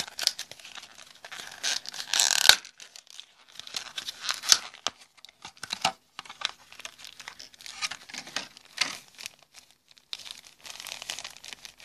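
Plastic blister packaging and a plastic bag holding a fretwire set being crinkled and pulled apart by hand, in irregular crackles, the loudest about two seconds in.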